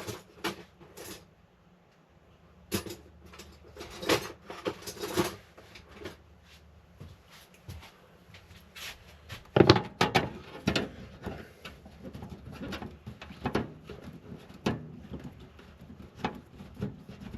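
Irregular metal clicks, knocks and scrapes of a screwdriver working screws and handling parts in a desktop PC case, with the loudest knock about ten seconds in.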